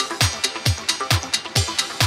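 Electronic dance music with a steady kick-drum beat, about two beats a second, and crisp high percussion ticking between the kicks.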